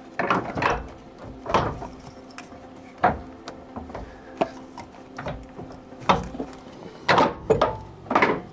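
Irregular metallic knocks and clunks, about seven over several seconds, as a freed car steering rack is shifted and worked out of its place under the car, knocking against the body.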